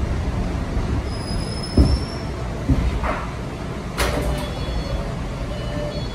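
New-style MBTA Red Line subway car coming to a stop at a station: a steady low running rumble with a few thumps and a brief thin high brake squeal about a second in, then a sharp click about four seconds in before the doors slide open.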